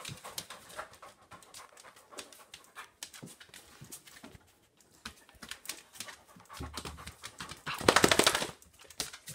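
Excited dog panting close to the microphone, with scattered light clicks and scuffs. About eight seconds in comes a loud, rough burst of rapid breaths as the dog's head is pressed against the phone.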